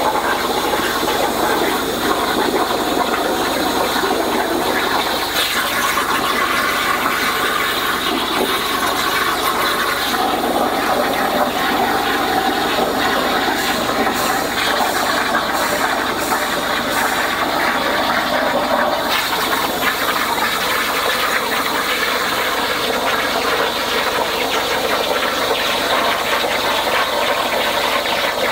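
Hypertherm plasma torch on a CNC plasma table cutting steel plate, the arc running as a steady, unbroken rush of noise.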